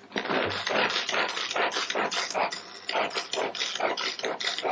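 Tupperware Extra Chef pull-cord chopper being pulled again and again, about two pulls a second, its blades spinning and chopping courgette pieces in the plastic bowl.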